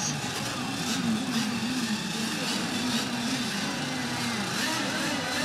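Engines of radio-controlled racing boats running on the water, their pitch wavering up and down as the throttles are worked.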